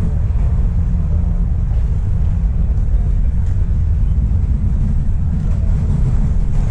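Subway train interior with a steady low rumble from the running gear and motors.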